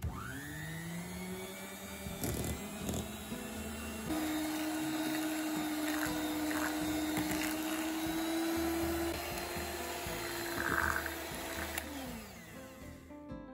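Polaris electric hand mixer starting up and whipping sour cream and powdered sugar in a glass bowl, its motor whine rising as it gets up to speed. About four seconds in it steps up to a higher speed, and near the end the whine falls away as it is switched off.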